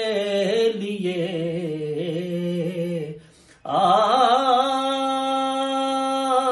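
A man singing a naat solo, drawing out the words "ke liye" with wavering ornaments. About three seconds in he breaks for breath, then holds one long steady note.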